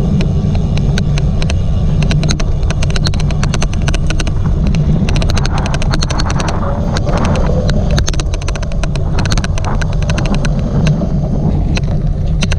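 Loud rumbling riding and wind noise from a cyclocross bike on the course, overlaid with many sharp, irregular clicks: the odd clicking noise that runs through the recording.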